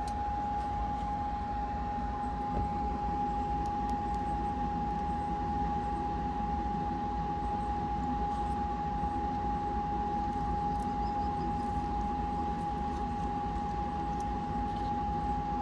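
Steady background hum with a constant high tone, and a few faint clicks as heat-shrink butt connectors and a crimping tool are handled on the wires.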